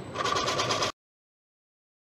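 A turning tool cutting into the spinning monkey puzzle wood on a lathe, a short, rapid chattering cut that cuts off suddenly about a second in.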